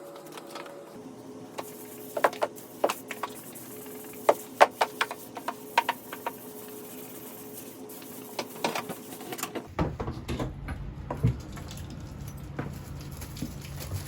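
Scattered light clicks and knocks of things being handled, over a faint steady hum. About ten seconds in, the hum gives way to a low rumble.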